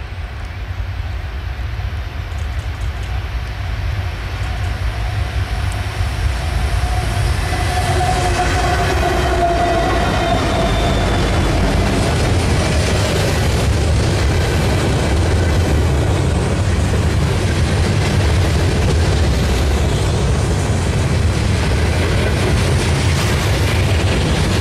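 Diesel-hauled freight train passing close by: the locomotives come up loud over the first several seconds, their engine tones dropping slightly in pitch as they go by, then a steady rumble and clatter of the open-top freight cars' wheels on the rails.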